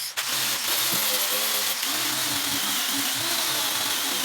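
Electric power tool running steadily in a cricket bat repair, its pitch wavering slightly; it drops out for an instant just after the start.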